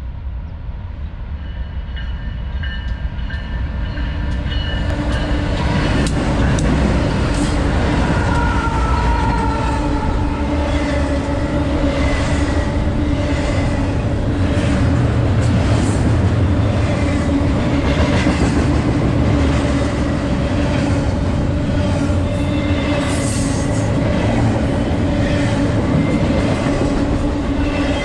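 BNSF double-stack intermodal freight train approaching and passing close by: the lead locomotives grow louder over the first several seconds, then the container well cars roll past in a steady loud rumble with regular clicks of wheels over the rail joints.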